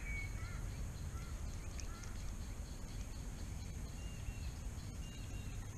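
Faint bird calls: a few short, thin, high notes scattered through, over a steady low rumble.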